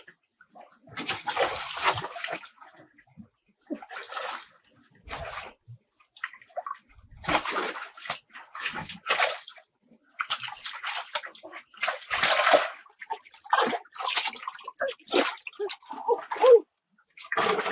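Water splashing and sloshing in short, irregular bursts with silent gaps between them.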